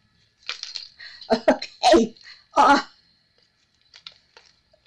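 A woman's voice: a cough-like vocal sound and a short 'okay', after a brief rustle of handling. A few faint light ticks follow near the end.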